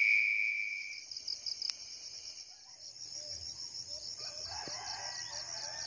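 A rooster crows faintly about four seconds in, over a steady high insect trill pulsing about five times a second. A high steady tone fades out within the first second.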